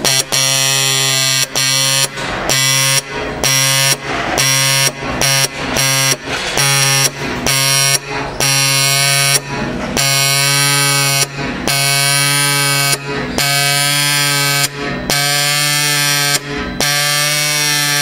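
Pneumatic dot peen marking machine's stylus pin hammering rapidly into a metal plate as it marks characters, giving a loud, steady low buzz. The buzz breaks off briefly every half second to a second or so as the pin moves between strokes.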